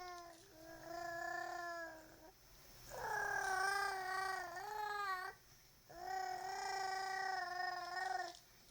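A baby imitating a motorcycle revving its throttle with its voice: long held buzzing tones, three of about two seconds each with short breaks between, the middle one dipping in pitch partway through.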